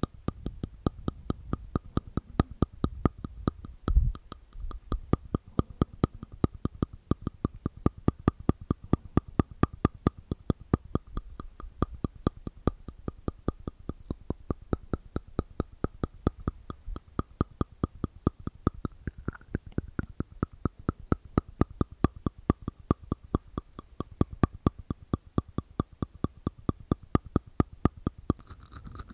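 Close-miked ASMR mouth sounds: a steady run of sharp, wet clicks made inside the mouth, about three or four a second, with one low thump about four seconds in.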